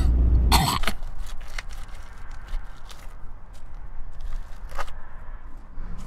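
Steady car engine and road hum that cuts off about half a second in, with a short loud noise at the break. It gives way to quiet outdoor ambience with scattered small scuffs, like shoes shifting on dirt and grit.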